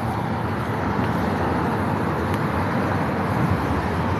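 Steady road traffic noise: a continuous rush of passing vehicles.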